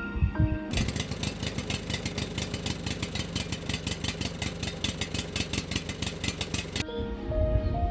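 Tractor engine sound effect: a diesel engine running at idle with a rapid, steady chugging. It starts about a second in and stops near the end. Brief background music plays before and after it.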